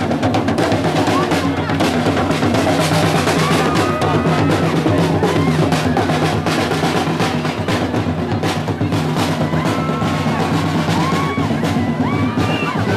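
Marching drums in a street procession beating a fast, continuous rhythm of snare and bass drum, with crowd voices and shouts around them.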